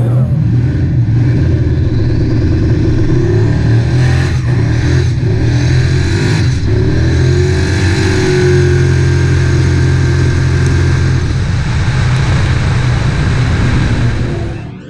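Loud V8 drag car engine running with a deep, steady rumble, its pitch rising a little around the middle.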